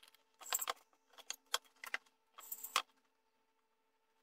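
Plastic and metal clicks and rattles of a stick blender being handled, its steel blending shaft and plastic motor body knocking together, in two short clattering bursts, the second ending in a sharper knock about three seconds in.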